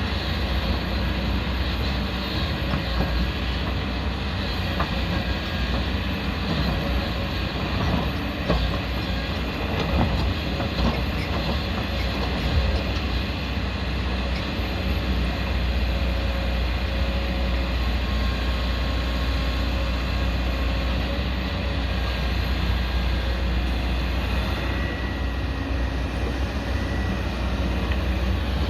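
Hydraulic excavator's diesel engine running steadily, with a few sharp knocks around the middle.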